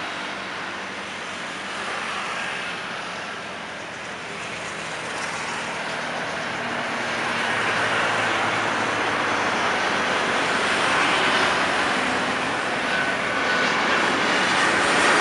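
Jet airliner's engines running, a steady rushing roar that slowly grows louder as the aircraft comes nearer.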